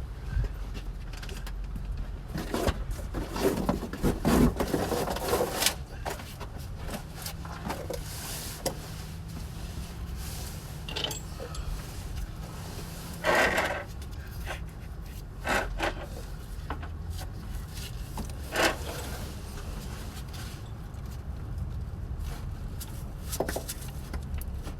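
Scattered knocks, scrapes and rubbing of hand tools and parts in a car's engine bay during an alternator removal, over a steady low hum. A cluster of knocks comes in the first few seconds, with single louder ones about halfway through and again a few seconds later.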